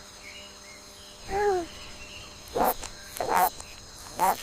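Gecko calling: one short pitched call that bends in pitch about a second and a half in, then a few sharp chirps spaced roughly a second apart, over a faint steady background hum.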